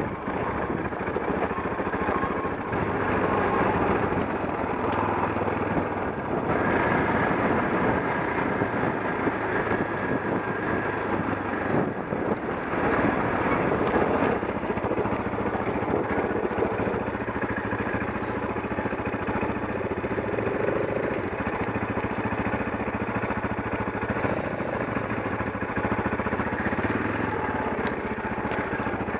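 KTM 640 Adventure's single-cylinder engine running steadily at low speed on a rough rocky track, under a steady rushing noise.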